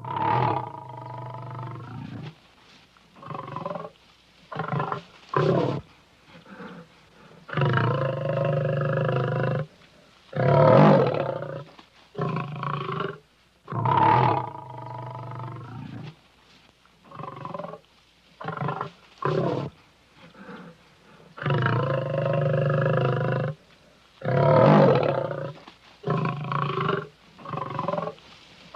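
A series of lion roars played as sound effects: many separate calls, short ones mixed with several louder roars of about two seconds each.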